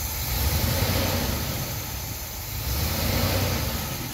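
A 1971 Cadillac Coupe de Ville's 472 V8, warm and running on a new CRT Performance electronic distributor and coil, is revved twice by hand at the carburetor throttle linkage, each brief rise settling back to idle.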